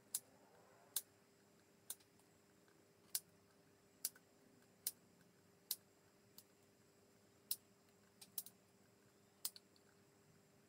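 Side cutters snipping the thin lead wires of an IN-17A nixie tube where they are soldered to the board's pads: about a dozen sharp snips, roughly one a second, unevenly spaced.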